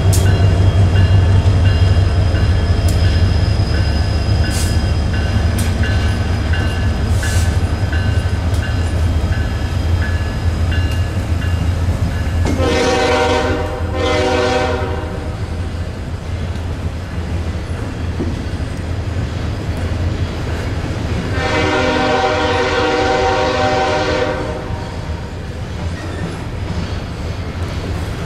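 Union Pacific freight diesel locomotives rumble past at close range, and then double-stack container cars roll by. A locomotive horn sounds twice, briefly, about halfway through, then once for about three seconds near the end.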